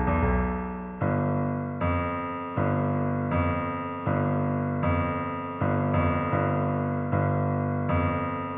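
Instrumental music: a piano-type keyboard plays chords struck about every three-quarters of a second, each left to ring and fade before the next.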